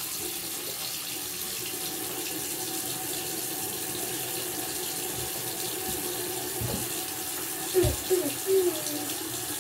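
Bathroom sink faucet running warm water in a steady stream into the basin. A few brief vocal sounds come near the end.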